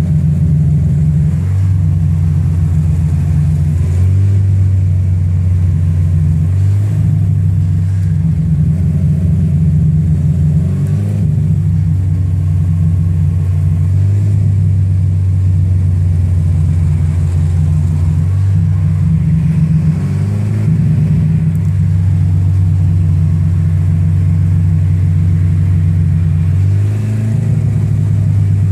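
Acura RSX Type-S K20 2.0-litre four-cylinder engine running steadily through a Seafoam treatment, its pitch stepping up and down a few times. Despite the 'blown motor rod knock' title, the uploader says this is a joke and the engine is only running on Seafoam.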